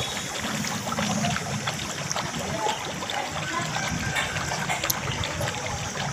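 Water trickling steadily, with many small scattered clicks over it.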